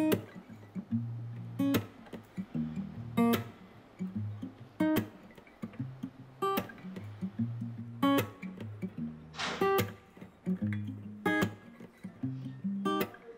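Background music: acoustic guitar over a steady beat, with a sharp hit about every second and a half.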